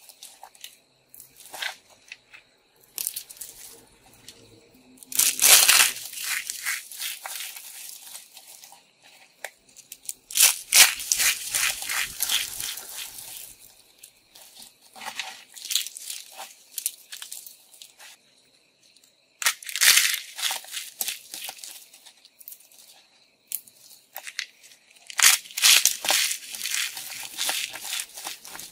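Dried, starch-dusted soap curls and chips crushed and crumbled by hand: dry crackling crunches that come in several loud bursts, with quieter rustling and crumbling between them.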